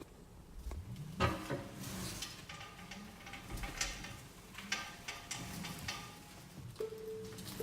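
Irregular metallic clanks and scraping from a Tesla's front brake, with short ringing tones: the owner thinks a rock is caught between the brake rotor and the dust shield.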